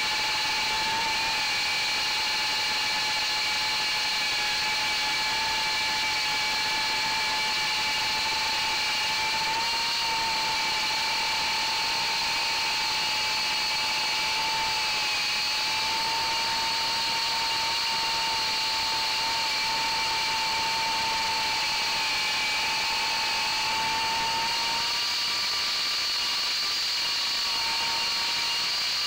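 FPV quadcopter's brushless motors and propellers whining steadily in flight, heard from on board over a hiss of wind. The whine is a cluster of high tones whose pitch wanders slightly and rises a little near the end.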